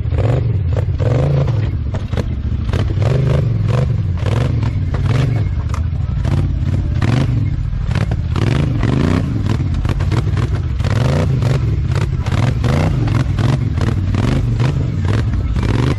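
Polaris Scrambler XP 1000 ATV engine revving up and down under load over rough ground, with frequent clattering knocks throughout.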